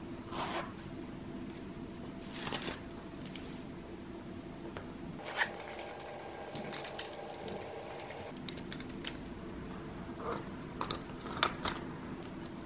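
Leather pencil cases handled on a tabletop: soft rustling swishes, then a run of small clicks and taps, over a faint steady hum.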